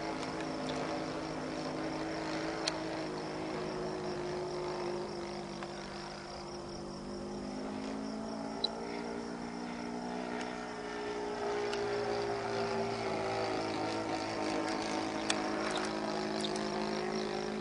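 Saito 1.25 four-stroke glow engine of an RC Midwest Citabria running steadily in flight overhead, a continuous propeller drone whose pitch dips slightly and rises again as the plane passes.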